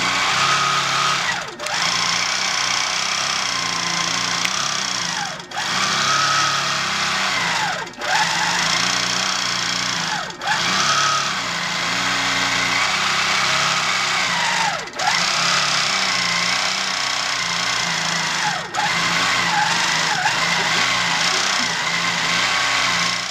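Handi Quilter Avanté longarm quilting machine stitching continuously. Its motor pitch dips briefly and picks up again about six times as the stitching slows and resumes.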